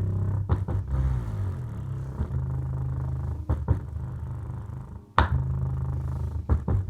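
Bass-heavy music played through small Samsung subwoofers: deep sustained bass notes that change every second or two, with sharp percussive hits over them.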